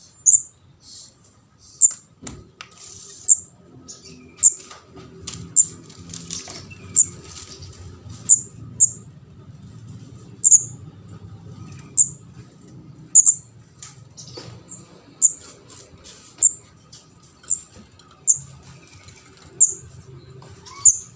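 Juvenile kemade jawa (ndas abang) giving short, sharp, high-pitched chirps, one roughly every second at uneven spacing: the begging-type call of a young bird used as a lure call for trapping.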